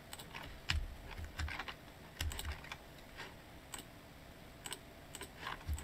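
Computer keyboard and mouse clicking: irregular key presses and button clicks, a dozen or so scattered through, some with a soft thud, while keyboard shortcuts and mouse clicks cut edge loops in a 3D model.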